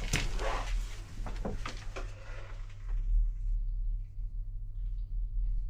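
Steady low machinery hum, with scattered knocks and scrapes of movement in the first few seconds that then die down.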